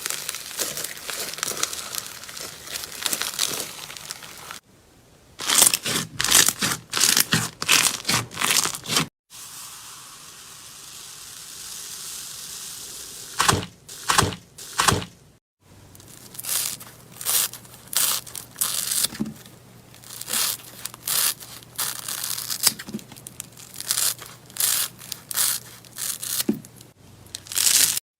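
Slime being squished and stretched, giving runs of sharp crackling pops and clicks. The sound changes abruptly three times as one clip cuts to the next.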